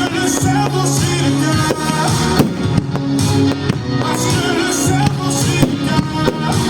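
Loud pop-rock music with singing and a steady repeating bass line, the kind played along with a fireworks show.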